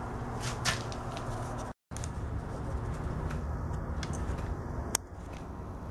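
Steady low background noise with a few faint sharp clicks, cut by a brief moment of total silence about two seconds in.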